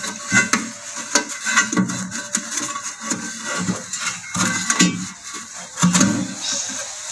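Plastic waste pipe of a wash basin being pulled and pushed into place by hand, with irregular clicks, knocks and scraping.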